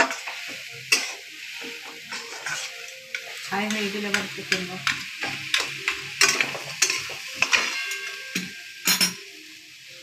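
Metal spatula scraping and clinking against a steel karai as grated coconut and jaggery are stirred together for a sweet filling, over a steady hiss. The scrapes and clinks come irregularly and stop about nine seconds in.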